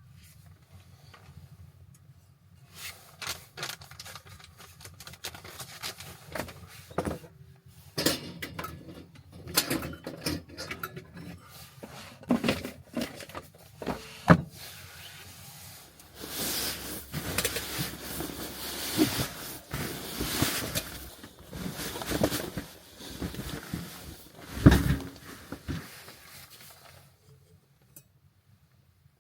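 Irregular knocks, clicks and clatter of objects being handled, with a stretch of continuous rustling noise from about the middle until shortly before the end.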